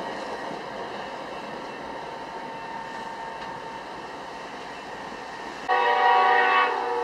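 Metra commuter train running with a steady rumble, then its horn sounds one loud chord-like blast of about a second and a half near the end.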